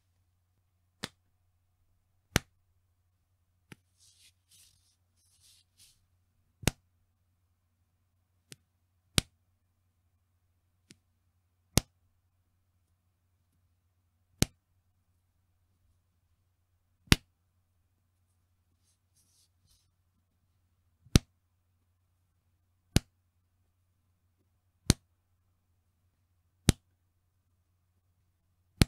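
Bra's elastic band pulled and let go, snapping back with a sharp slap about every two seconds, with a few fainter snaps between. Soft rustling twice, a few seconds in and about two-thirds through.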